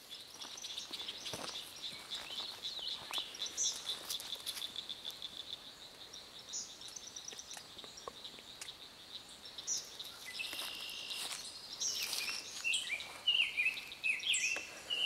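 Wild birds singing: a fast, even, high trill for the first half, then varied chirping calls that get louder toward the end.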